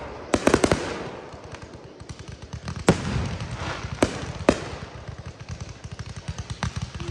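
Aerial fireworks going off: a quick cluster of sharp bangs in the first second, then single loud booms every second or so, with crackling pops between them.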